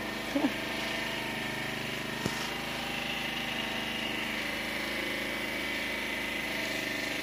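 Steady drone of an unseen engine running at constant speed, with a single faint knock about two seconds in.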